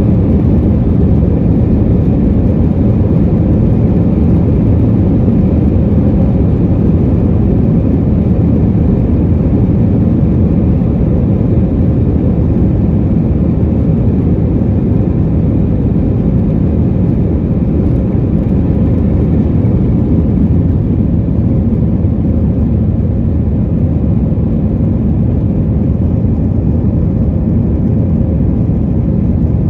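An Airbus A320's IAE V2500 turbofan engines running at high power, heard from inside the cabin as a loud, steady roar mixed with airflow noise, easing slightly about twenty seconds in.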